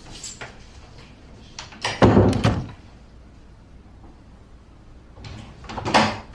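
A door shutting with a heavy thud about two seconds in, followed by further knocking and handling sounds near the end.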